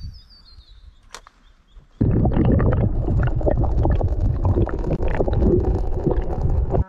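Muffled underwater rushing and gurgling with crackling clicks, as heard by an underwater camera while a small crankbait lure is pulled through the water. It starts suddenly about two seconds in after a quiet moment with one faint click, and cuts off sharply.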